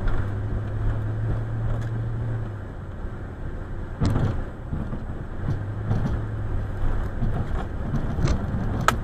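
Snow plow truck's engine running, heard from inside the cab as a steady low hum, with a few sharp knocks and rattles, the loudest near the end.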